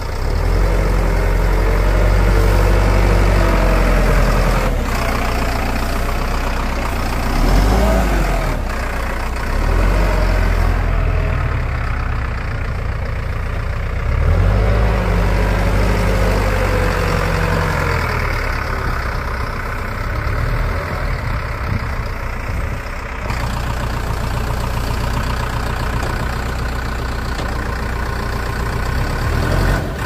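Bull SD76 backhoe loader's diesel engine running and revving up and easing off several times as the machine drives and raises its loaded front bucket.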